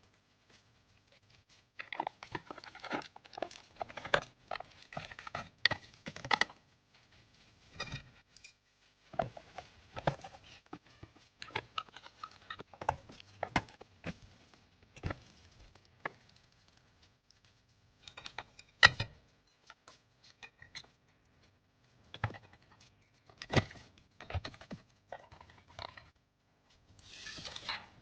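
Close-up handling of computer parts and their packaging: scattered clicks and taps mixed with rustling and crinkling, in short bursts with pauses and one sharp click about two-thirds through.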